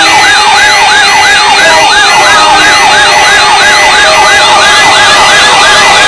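Several weather alert radios alarming at once for a Required Weekly Test. A loud siren-like tone warbles up and down about three times a second over steady, high alarm tones.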